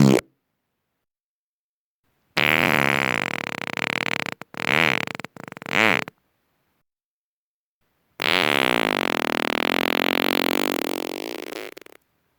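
A string of farts separated by dead silence. The end of one comes right at the start, then a pitched, buzzing fart of about two seconds followed by two short puffs, then a long, drawn-out fart of nearly four seconds that trails off near the end.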